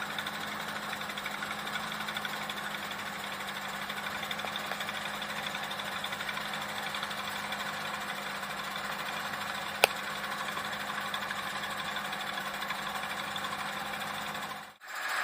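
Fishing boat's engine running steadily with a constant hum. There is a single sharp click about ten seconds in, and the sound cuts off shortly before the end.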